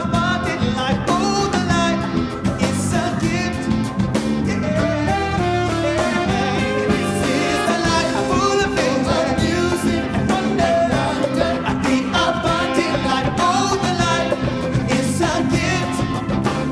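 Live soul band performing a song: lead and backing vocals sung over keyboard, bass guitar and drum kit, with a horn section of trumpet and saxophones.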